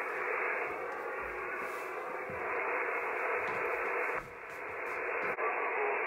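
Hiss of a Yaesu FT-991A transceiver receiving on 6 m single sideband (50.217 MHz) through its speaker, held within the narrow voice passband, with no station audible: an empty frequency after a CQ call. The hiss dips briefly about two-thirds through, with a small click just after.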